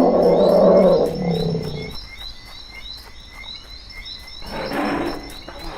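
A loud, low roar that fades out by about two seconds in, leaving a steady frog chorus with regular high chirps. A short rushing swell comes about four and a half seconds in.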